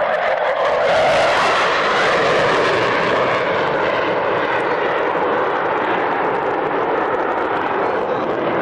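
Panavia Tornado F3's twin RB199 jet engines during a fast, low run past: a loud jet noise that peaks about a second in and then eases off slightly as the aircraft passes and moves away.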